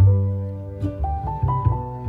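Background music: plucked strings and piano over a deep bass, short notes changing every fraction of a second.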